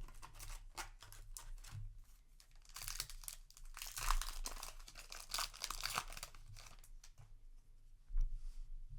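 Foil Yu-Gi-Oh! booster pack wrapper being torn open and crinkled, with a steady run of crackling that is loudest and densest in the middle stretch.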